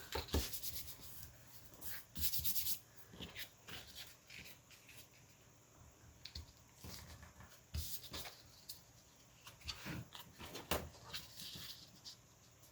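Paper pieces being handled and pressed down during junk-journal gluing: scattered rustling, rubbing and light taps, with a longer rustle about two seconds in.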